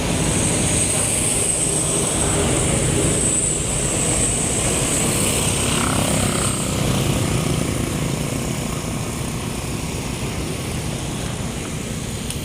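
Steady mechanical drone of running machinery, with a high hiss over it for roughly the first seven seconds.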